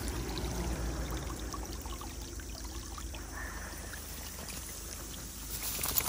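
Shallow water trickling and splashing in a small grassy irrigation ditch as an Akita dog stands in it. Near the end there is a brief louder rustle.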